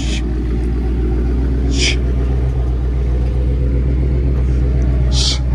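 Dodge Scat Pack's 6.4-litre HEMI V8 idling with a steady deep rumble just after start-up. Two short hisses sound over it, about two seconds in and again near the end.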